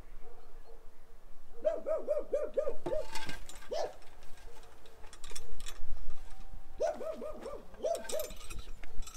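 An animal calling in two quick runs of short, repeated cries, one about one and a half seconds in and one near the end, each run lasting about a second. Scattered knocks and rustling come between the runs.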